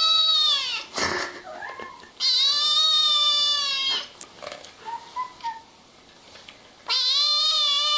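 A kitten meowing in three long, high cries, each falling away at its end: one fades just under a second in, one comes in the middle, and one starts near the end. There is a short knock about a second in.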